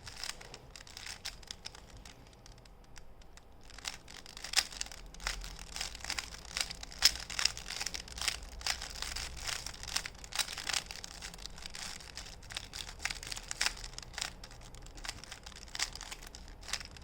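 Plastic 3x3x3 Rubik's cube being turned rapidly by hand, its layers clicking and rattling in quick irregular runs. The clicking thins out for a moment about two seconds in, then comes thick and fast from about four seconds in.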